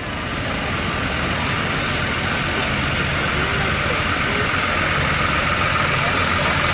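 Old tractor's engine running at low revs as it drives slowly closer, growing gradually louder.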